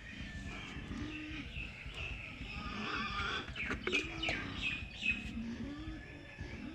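Pigs calling repeatedly with short, pitched squealing whines that rise and fall, about five of them, as they wait at feeding time. A few sharp knocks come in the middle.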